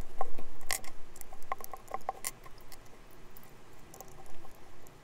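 Hex driver turning socket-head M3 screws into a 3D-printed plastic housing: a run of small sharp clicks and scratchy ticks of metal on metal and plastic, with a quick cluster of ticks about a second and a half in.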